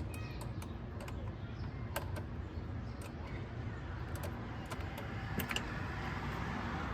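Scattered light clicks and taps, irregular and a second or so apart, over a steady low background rumble.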